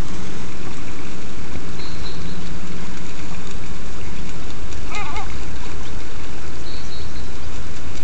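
Steady, loud wind-and-water rumble on a phone microphone, with a low steady hum through the first half. A short gull call comes about five seconds in.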